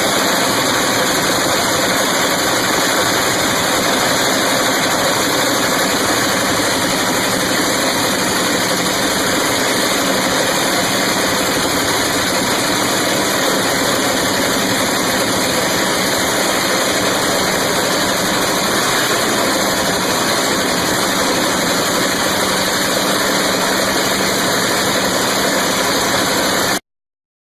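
Turbocharged drag race car engine running loud and steady at idle, with no revving. It cuts off suddenly near the end.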